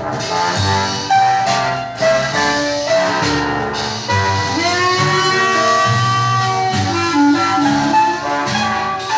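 Dixieland jazz band playing a slow blues, horns holding long notes, with a note sliding upward about four and a half seconds in.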